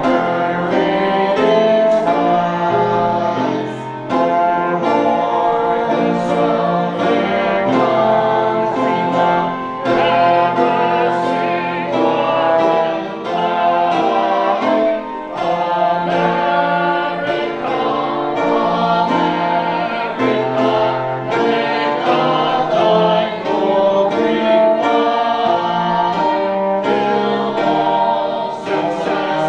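A hymn sung by a group of voices together, with instrumental accompaniment.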